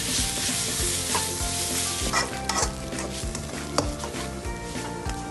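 Instant noodles with cabbage and egg sizzling in a hot nonstick wok while a plastic slotted spatula stirs and tosses them, with irregular clicks and scrapes of the spatula against the pan over a steady frying hiss.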